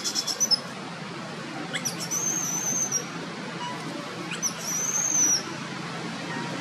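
Baby long-tailed macaque crying in thin high-pitched squeals: a quick run of short squeaks at the start, then two drawn-out squeals, each rising sharply then held and falling away, about two and four and a half seconds in. These are the distress cries of an infant whose mother no longer lets it nurse.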